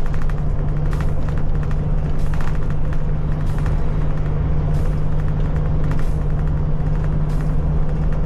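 Iveco Irisbus Crossway bus cruising at motorway speed, heard inside the cabin from the driver's seat: a steady low drone of engine and drivetrain with tyre and road rumble. A soft swish recurs about every second and a quarter.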